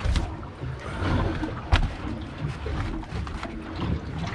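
Steady low rumble on an open boat deck while hands handle rockfish on a plastic measuring board, with one sharp knock nearly two seconds in.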